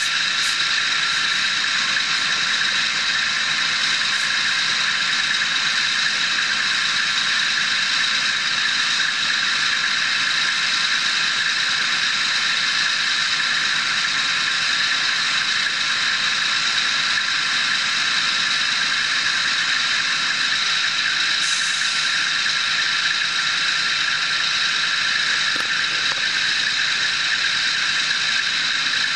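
Heavy Kenworth gin pole trucks' diesel engines running steadily as they winch a drawworks up onto the rig, with a constant high whine over the engine noise.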